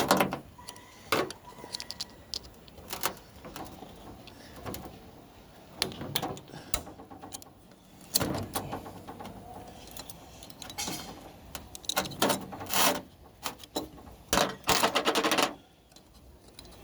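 Metal parts of a Turbo 400 automatic transmission being handled during teardown: clutch drum and clutch plates clinking and scraping, in irregular clicks and knocks with a few longer scrapes.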